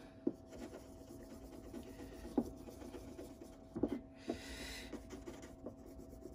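A bar of green polishing compound being rubbed back and forth on a strop paddle to load it: faint dry scratching with a few light ticks.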